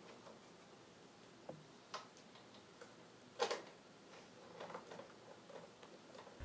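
Nut driver turning a screw into the sheet-metal bracket at the front of a rooftop unit's indoor fan assembly: a few faint scattered clicks and ticks, the clearest about three and a half seconds in.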